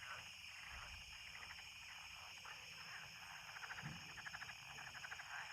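Faint chorus of calling insects: a steady high buzz with rapid pulsing trills, strongest about four seconds in.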